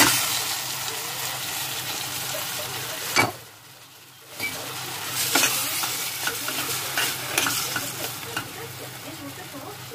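Raw chicken pieces sizzling in a hot stainless steel pot of sautéed garlic, onion and tomato, stirred with a few sharp knocks and clicks against the pot. The sizzle drops away for about a second after a knock a little past three seconds in, then comes back.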